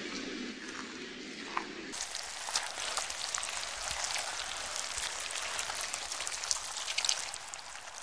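A giant panda chewing and crunching a bamboo shoot, cut off after about two seconds by a fine crackling fizz of foam bubbles popping on wet beach sand.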